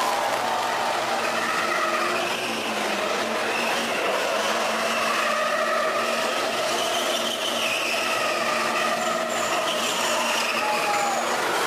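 Semi-truck tractor unit spinning donuts in a burnout: its rear tyres squeal continuously and waver in pitch, over its running engine.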